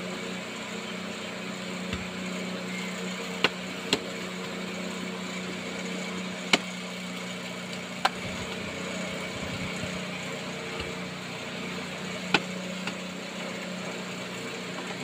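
Roti dough being patted and slapped between the palms for tandoor bread, a sharp slap every few seconds, five in all, over a steady low motor hum.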